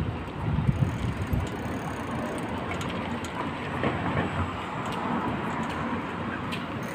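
Scooter riding along: steady road and motor noise, with wind buffeting the microphone in the first second and a half.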